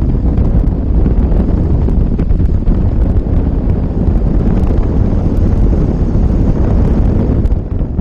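Heavy wind buffeting the microphone on an open jet boat running at speed, over the steady rush of the boat's engine and water, with a brief dip in level near the end.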